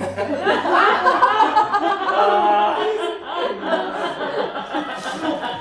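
Several people laughing together, a loud, continuous burst of overlapping laughter with some voices mixed in.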